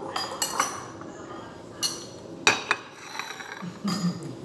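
Metal spoon clinking and scraping against a bowl while scooping oatmeal porridge: a run of sharp clinks, the loudest about two and a half seconds in.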